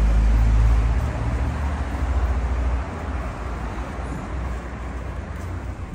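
City street traffic noise: a low rumble, loudest in the first second or so, then a steady hiss of passing cars and road noise.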